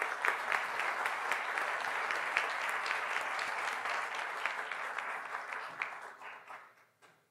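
Audience applauding, a steady clatter of many hands clapping that dies away near the end.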